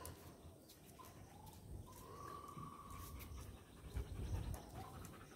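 Black Labrador retriever panting faintly, out of breath from the heat.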